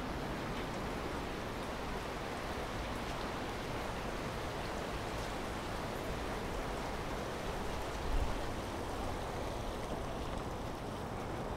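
Shallow creek water running steadily over rocks, with a brief low thump about eight seconds in.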